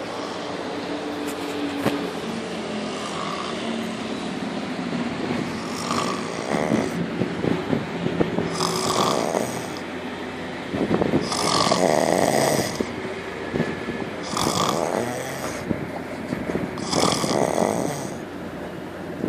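Snoring in a steady rhythm: rattling snores with a breathy hiss, coming about every three seconds from about six seconds in.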